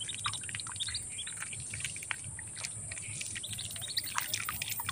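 Lesser whistling duck ducklings peeping: many short, high chirps in quick succession, over a steady high-pitched hiss.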